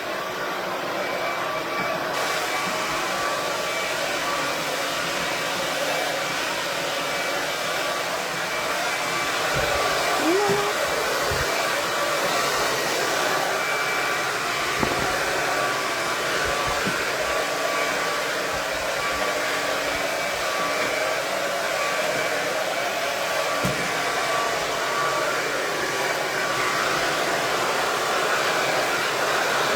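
KISS 1875 Watt Pro Tourmaline Ceramic hair dryer running steadily, a continuous rush of air with a faint motor whine. A few soft knocks come through it about a third of the way in and again later.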